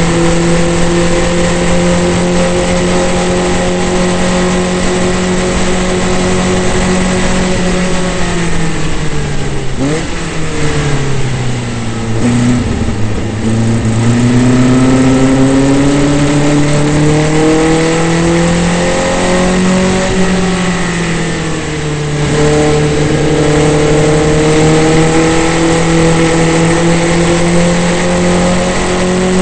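Onboard sound of a Formula Vee race car's air-cooled Volkswagen flat-four engine at full throttle. Its note falls about eight seconds in as the car slows for a slow corner, then climbs steadily as it accelerates out, with a short dip around twenty seconds in before it holds high again.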